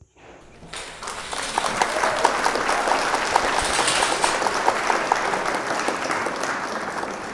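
A crowd applauding: dense clapping that starts just under a second in, swells quickly and holds steady.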